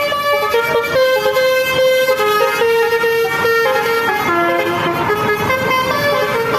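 Basuri telolet multi-tone bus horn playing a tune: a continuous run of horn notes stepping from pitch to pitch, several tones sounding together.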